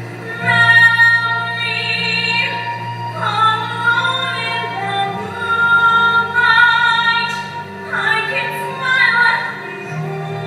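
A woman singing a slow ballad in long held notes over steady low accompaniment chords.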